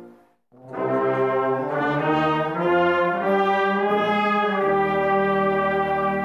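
Brass band of trumpets, trombones, euphoniums and tubas playing a slow hymn. After a brief pause at the very start, the full band comes back in about half a second in and plays held chords that change every second or so.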